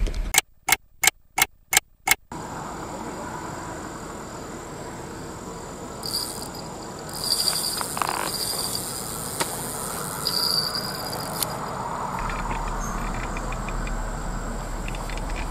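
Insects buzzing in several high-pitched surges of a second or two over a steady low background hum. Near the start there are a few short bursts of sound broken by silence.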